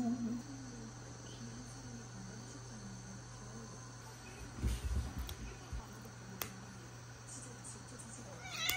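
Faint steady chirring of crickets. About halfway through come a few low thumps and rustles as the cat is handled, and near the end a brief high-pitched cry.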